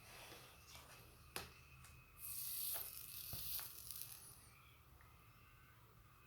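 Soldering on a MacBook charger's power supply board: a few faint clicks of handling, then a high-pitched hiss of about two seconds as the hot iron meets flux on a joint.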